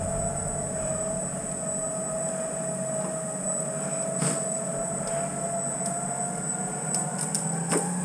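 Electric winch motor whining steadily under load as it pulls an overturned 4x4 back onto its wheels, with a few sharp clicks or knocks about four seconds in and near the end.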